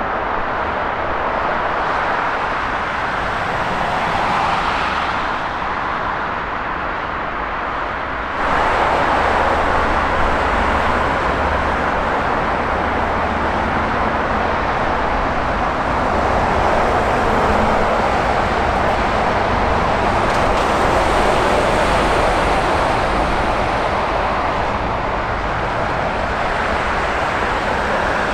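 Jet airliner engine noise, a steady loud rush. It steps up abruptly about eight seconds in, then swells and eases slightly.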